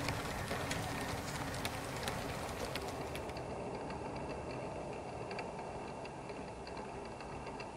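Model railway coaches rolling along the track: a steady low running rumble with many small sharp clicks from the wheels passing over rail joints. About three seconds in, the sound turns muffled.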